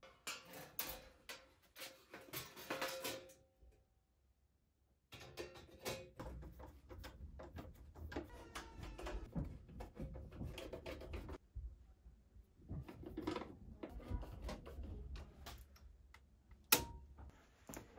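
Steel breaker-panel cover being handled and fitted back onto the panel: scattered metal clicks, taps and knocks, with a brief break about four seconds in.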